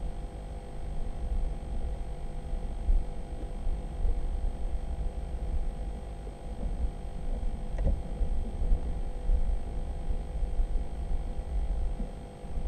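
Low, fluctuating rumble of air buffeting the onboard camera's microphone in a weather balloon's payload, with a faint steady electronic whine and a single click about eight seconds in.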